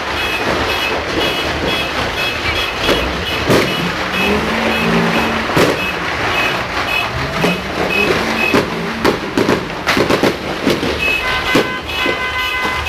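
Fireworks and firecrackers going off with many sharp bangs and cracks at irregular times, over a rapid repeating high-pitched beeping. Near the end a steady horn-like tone starts.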